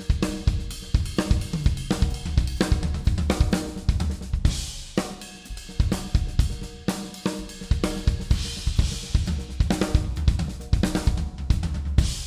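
Acoustic drum kit played in rapid strokes across snare, toms and bass drum, with cymbal crashes about four and a half seconds in, again around eight seconds, and near the end.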